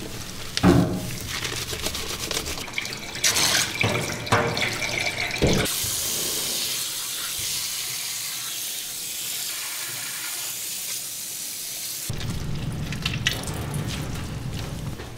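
Grooming-tub shower sprayer running over a cat's wet, soapy fur. Hands squelch and splash through the lather for the first few seconds, then a steady spray hiss runs for about six seconds before the sound changes to a fuller splashing near the end.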